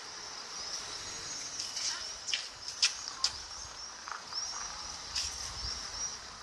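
Outdoor garden ambience: a steady high-pitched chorus of quick repeated chirps, with a few lower calls and two sharp clicks in the middle.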